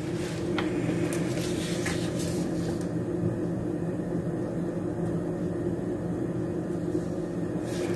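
Steady low hum of a running electrical appliance, even in level throughout.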